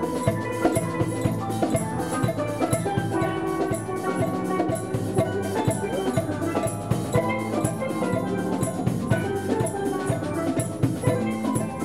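Steel pan band playing a lively tune, many pans sounding bright ringing notes together over drums keeping a steady beat.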